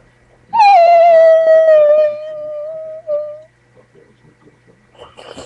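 A boy's voice howling: a loud, long high-pitched note that slides down briefly, then holds for about three seconds with a short break near its end. A rustling noise follows near the end.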